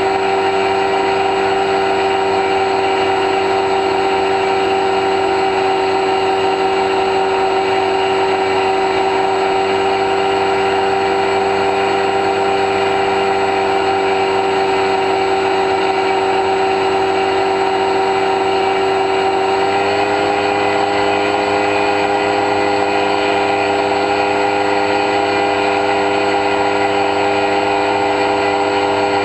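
An X-UAV Talon's brushless electric motor spinning its pusher propeller in cruise flight, heard from the plane's onboard camera as a steady, high whine. The pitch steps up slightly about twenty seconds in.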